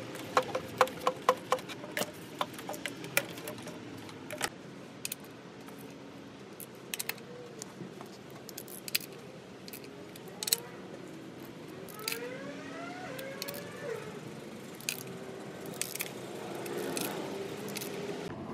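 Clicks and clinks of hand tools and engine parts being handled, with a quick run of clicks at the start and scattered clicks after. A few short rising squeaks in the middle.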